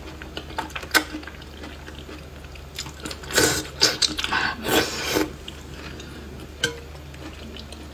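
Close-miked eating: strips of food in sauce slurped from chopsticks and chewed, with two loud wet slurps about three and a half and five seconds in and sharp clicks about a second in and near the end.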